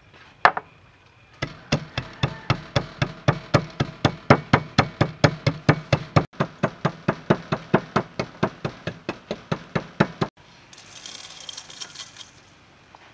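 Wooden pestle pounding seeds in a wooden mortar: one knock, then steady sharp knocks about four a second for roughly nine seconds. Near the end the knocking stops and there is a rustling hiss as the crushed seeds are poured from the mortar into a stainless steel bowl.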